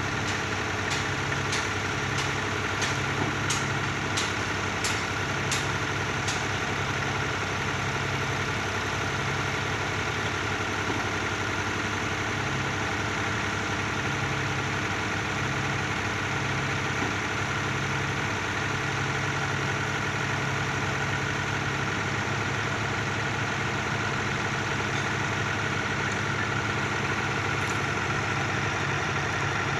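Mini excavator's diesel engine running steadily as its arm lifts a cement mixer down off a flatbed truck. A run of light ticks comes in the first six seconds.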